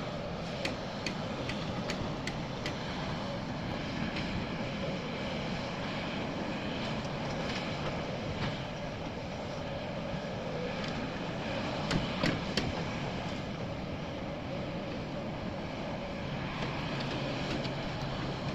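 Excavator engine running steadily, with scattered sharp knocks and a louder pair of clanks about twelve seconds in.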